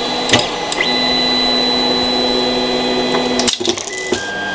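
Creality Ender 3 3D printer's stepper motors running a homing move, a steady whine that jumps to a new pitch about a second in and again near the end, with a couple of sharp clicks.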